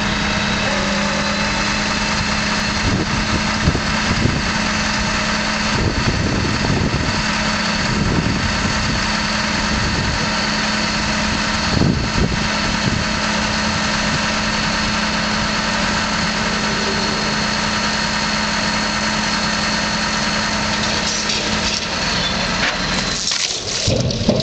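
An engine running steadily at a low idle, with a few scattered knocks and clunks over it.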